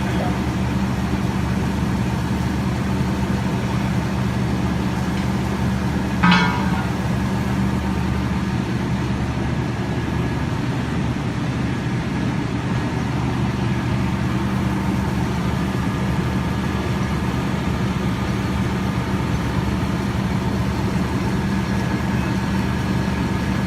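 A steady low engine hum, like a vehicle idling. About six seconds in, a brief, loud high-pitched sound cuts in.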